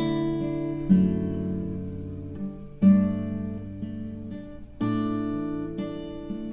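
Karaoke backing track in its instrumental intro: acoustic guitar playing slow chords, a new chord struck about every one to two seconds and left ringing.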